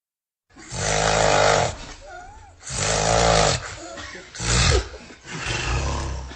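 A sleeping person snoring loudly: four snores in a row, each a second or less long, with short quieter breaths between.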